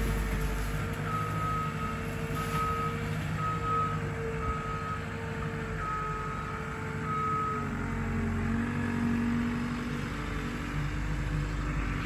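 A loader's engine runs steadily while its reversing alarm beeps about once a second, about seven beeps in all. The beeping then stops and the engine note drops lower.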